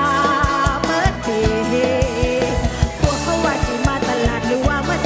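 Live Isan mor lam song: a woman singing into a microphone over an amplified band, with a steady kick-drum beat and a wavering melody line.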